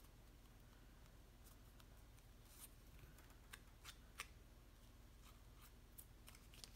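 Faint light clicks and crinkles of cardstock pieces being handled and pressed together by hand, a few scattered ticks over a steady low hum.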